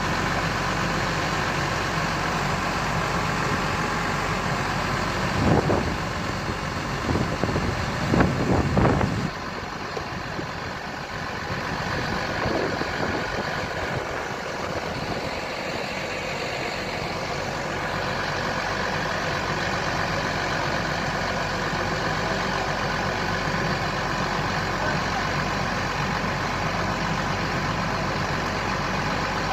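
Water-well drilling rig's engine running steadily, with a few louder knocks and rattles about five to nine seconds in.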